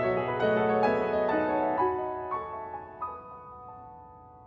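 Background piano music: a gentle run of notes that is held and dies away over the last couple of seconds.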